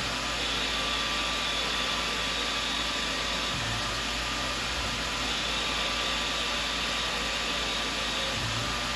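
Tormach CNC mill spindle running steadily while turning a part like a lathe, a steady mechanical hiss with a thin whine. A faint low hum comes and goes about every five seconds.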